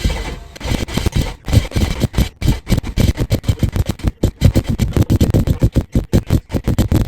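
BMW 335i's N54 twin-turbo inline-six being cranked on the starter in a cold start, failing to catch. The engine sound dies away in the first second, then gives way to a long run of rapid, uneven pulses.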